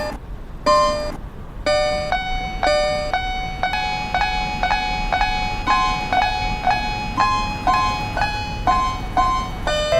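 Synthesized level-crossing bell ringing in a quick steady rhythm, about three strikes a second, its pitch stepping among a few notes like a little tune.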